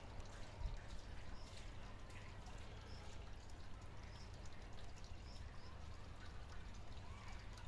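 Faint outdoor dusk ambience: a steady low rumble with scattered faint high chirps, and a couple of softer chirps near the end.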